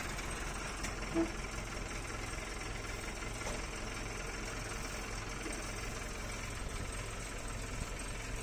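Mahindra tractor's diesel engine idling steadily, with a low, even hum.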